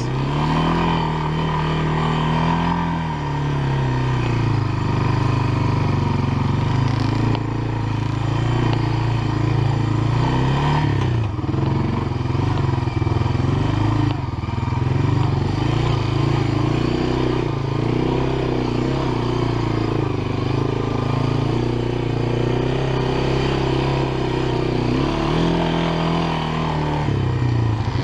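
Honda FourTrax ATV engine running on the move, close up, its pitch rising and falling as the throttle is opened and eased off.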